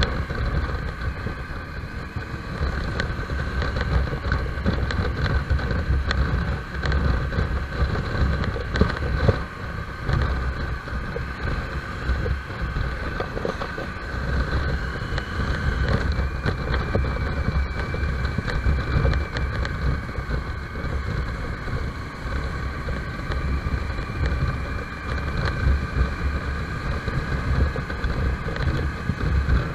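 Motorcycle engine running at riding speed, with wind buffeting on the onboard microphone.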